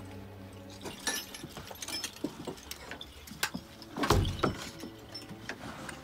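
Metal bells and pendants on a shaman's costume clinking and jangling irregularly as he moves, with one low thump a little after four seconds in.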